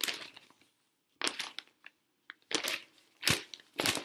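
Sheets of paper being handled and shuffled close to the microphone: about five short rustles and crinkles.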